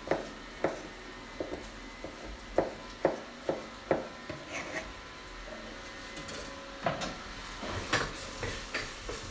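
Kitchen knife dicing a peeled potato on a plastic cutting board: irregular sharp knocks of the blade hitting the board, about one or two a second. Near the end come a few more knocks from a wooden spoon stirring in a saucepan.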